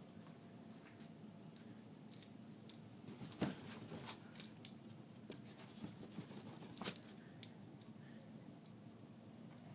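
A few short taps and scratches on a cardboard box, the loudest about three and a half seconds in and another near seven seconds, over quiet room tone.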